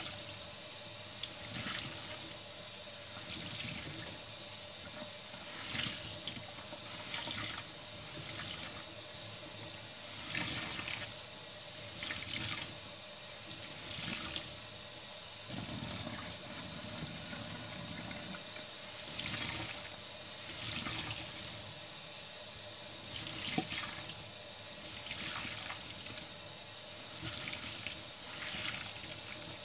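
Tap water running steadily into a stainless steel sink while a soapy sponge is squeezed and wrung under the stream to rinse the foamy paste out of it. A wet squish comes every second or two.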